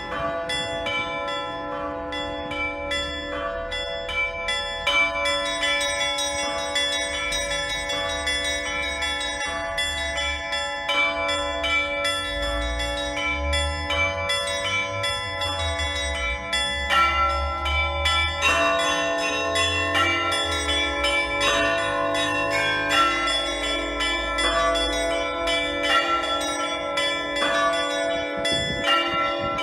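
Russian Orthodox church bells rung by hand by a single ringer: quick strikes on small high bells over deeper bells, their tones overlapping as they ring on. The ringing pattern shifts about halfway through.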